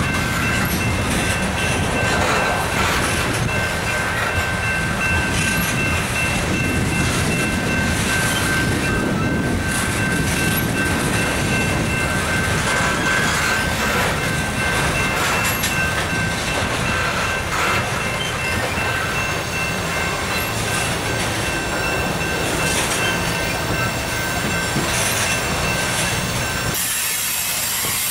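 Freight train of covered hopper cars rolling past: a steady rumble and clatter of steel wheels on the rails, with a thin steady high-pitched tone held above it. The low rumble drops away about a second before the end.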